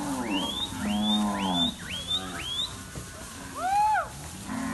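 A herd of cattle mooing, with long low calls in the first two seconds. Over them come about five short high notes sweeping upward, one after another, then a loud arching call about four seconds in.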